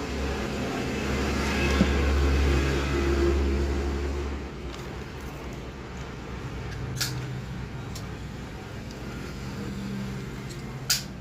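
An engine running steadily with a low hum that drops in level about four and a half seconds in, and two sharp clicks, one past the middle and one near the end.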